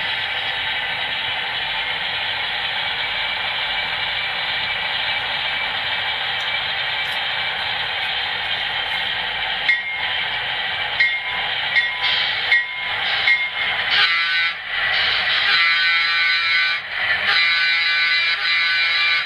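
HO-scale Baldwin Centipede diesel model's onboard sound system playing a steady diesel prime mover, mixed with the model's wheels running on the track. From about ten seconds in, short tones repeat about once a second, and several horn blasts sound near the end.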